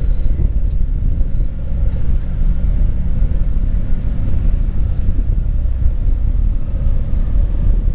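Wind buffeting the microphone: a loud, uneven low rumble. A few faint, short high chirps come through now and then.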